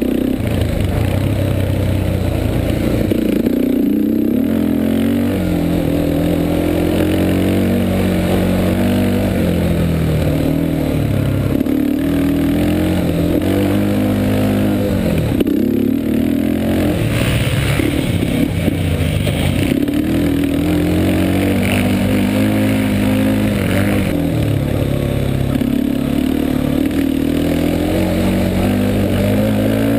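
Yamaha Warrior 350 quad's single-cylinder four-stroke engine running hard under throttle, its pitch climbing and dropping back again and again as the rider accelerates, shifts and backs off.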